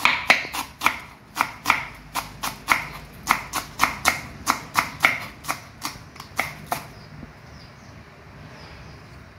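Cleaver chopping green onions on a wooden cutting board: a quick run of sharp knocks, about three or four a second, that stops about seven seconds in.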